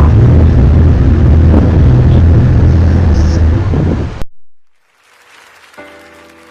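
A loud, distorted low rumbling drone, the kind of recording circulated as 'trumpets from the sky', which cuts off suddenly about four seconds in. Soft music with held notes fades in near the end.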